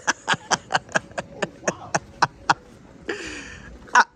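A man laughing in a quick run of short bursts that slows a little, then a breathy gasp and a few more laughs near the end.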